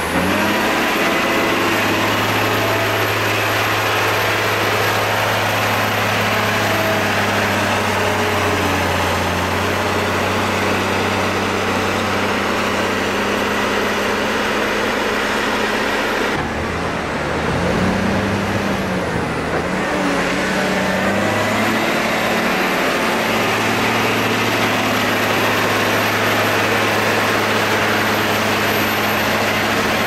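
Caterpillar wheel loader's heavy diesel engine running steadily under load while it pushes chopped maize silage. Its note changes about halfway through, wavers in pitch briefly, then settles back to a steady drone.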